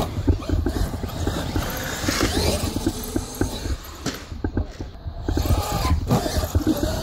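Electric radio-controlled trucks being driven hard, with a motor whine gliding up and down about two seconds in over a constant low rumble full of clicks and knocks.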